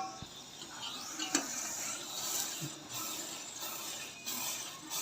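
A spoon stirring a pot of milky masala chai as it comes to the boil. The spoon gives one sharp clink against the pot about a second and a half in, over a faint steady hiss of the boiling tea.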